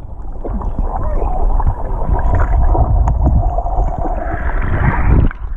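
Swimmers kicking and churning the water, heard underwater by a camera held below the surface: a muffled low rumbling with bubbling and knocks.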